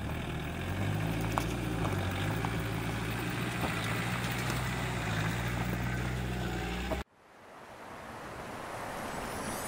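Land Rover Defender's engine running, a steady low drone that shifts slightly in pitch. It cuts off abruptly about seven seconds in, and the rush of a shallow stony river fades in.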